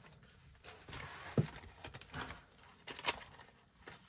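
A few separate light taps and clicks from cash being handled: coins and banknotes being counted and put into paper budget envelopes.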